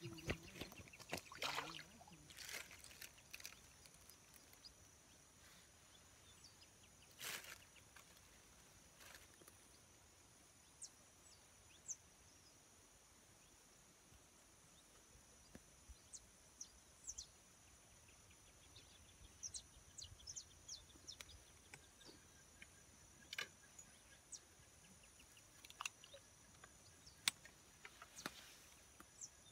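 Near silence: faint outdoor ambience with a steady high hiss and scattered short bird chirps. A few sharp clicks and knocks come in the first few seconds and once about seven seconds in.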